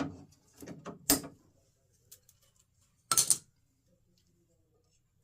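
Jeep YJ hard-door latch mechanism being worked by hand: a few short mechanical clicks and clunks, with a sharp click about a second in and a louder brief clatter a little after three seconds.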